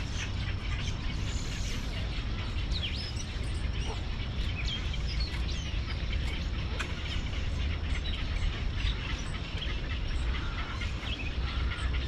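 Many short bird calls scattered across the rookery, high chirps and squeaks coming irregularly, over a steady low rumble.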